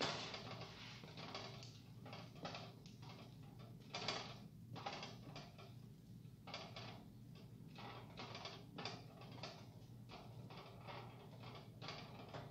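Wooden spoon stirring noodles and vegetables in a stainless steel pot: repeated scraping strokes against the pot, roughly one or two a second, over a low steady hum.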